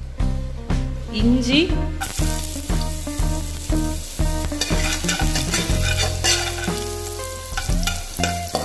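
Hot oil sizzling in a kadai as mustard seeds, chana dal, urad dal and chopped ginger fry in it, over background music with a steady beat.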